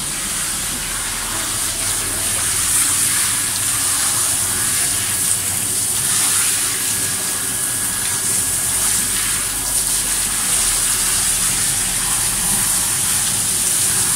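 Water from a hand shower on a hose spraying steadily onto a wet Lhasa Apso's coat and splashing onto the grooming table as the shampoo is rinsed out.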